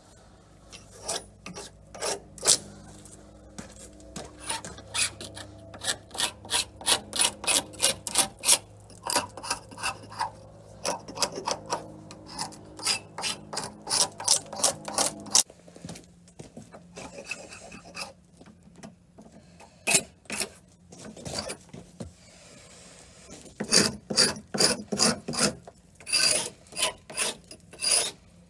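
Hand scraper rasping old paint off the weathered wooden stem of an old carvel-built boat, in runs of quick strokes, about three a second, with a lull of a few seconds past the middle.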